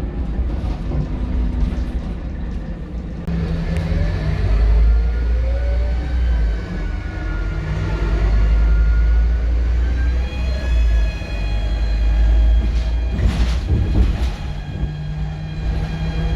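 Scania K230UB bus's five-cylinder diesel engine and drivetrain running under way: a heavy low rumble with a thin whine, from the turbo and differential, that rises and falls as the bus speeds up and eases off. Two sharp knocks come about three-quarters of the way through.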